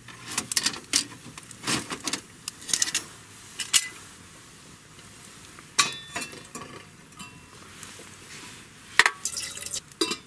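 Metal clinks and knocks of an enamel kettle being handled on the steel grill over a wood fire: a cluster of sharp clatters in the first few seconds, then single knocks about six and nine seconds in.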